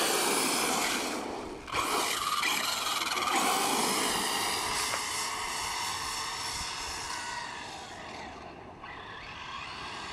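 1/5-scale electric RC monster truck with a Castle Creations Mamba Monster 2200kv brushless motor driving hard on asphalt, only one of its two motors working: a high motor and gear whine over tyre scrub. It dips briefly just under two seconds in, fades as the truck draws away, and grows again near the end.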